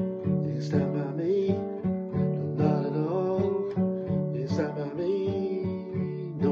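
Acoustic guitar strummed in a steady rhythm, with a man's wordless singing gliding over the chords in between.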